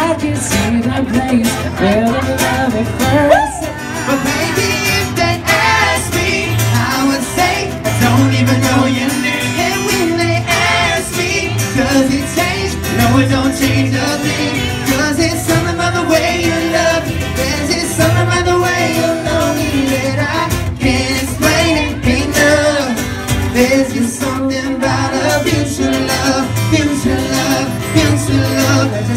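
A boy band singing a pop song live into handheld microphones, with instrumental backing and a steady low beat under the voices.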